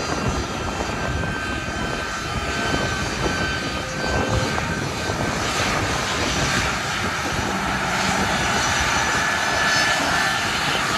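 Aircraft engines running, a steady rush with a high whine over it, slowly growing louder.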